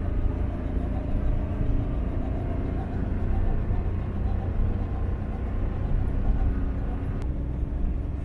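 Car driving on a paved road, heard from inside the cabin: a steady low rumble of engine and tyres. A faint click about seven seconds in.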